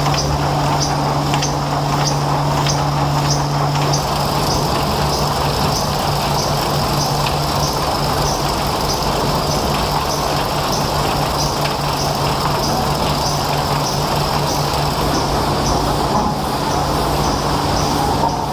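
Sawmill machinery running steadily: a constant low hum under a regular high ticking about one and a half times a second. The hum changes character about four seconds in.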